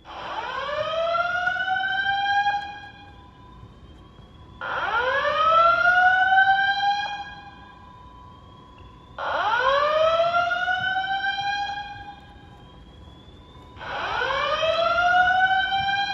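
Fire alarm evacuation speakers of a Simplex 2001-8005 audio-evac system sounding a whoop tone: four rising sweeps, each about two and a half seconds long and repeating roughly every four and a half seconds, the last cut off at the end.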